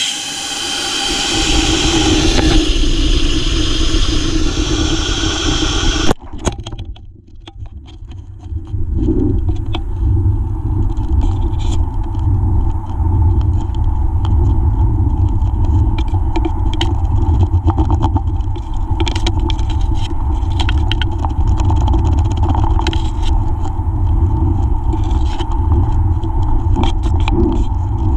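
Model rocket launch heard from onboard: a loud hissing rush with whistling tones as the rocket climbs, cut off abruptly by a sharp crack about six seconds in, typical of the ejection charge firing. Then a steady low wind rumble on the camera's microphone, with scattered rattles and knocks, as the rocket comes down.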